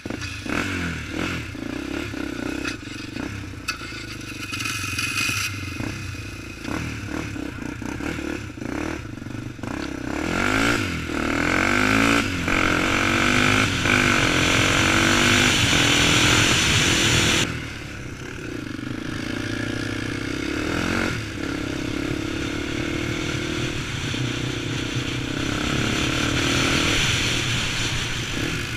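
Honda 400ex quad's single-cylinder four-stroke engine pulling away and accelerating, the pitch rising as it revs up, with knocks and rattles from the rough trail. It is loudest about halfway through, drops sharply a little after, then runs on steadily.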